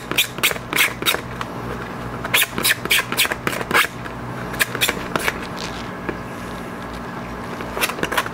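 Small screwdriver tip scratching a groove around the edge of the piece in quick repeated strokes, about three a second, roughing the surface so silicone can grip it. The scratching thins out after about four seconds and picks up again near the end.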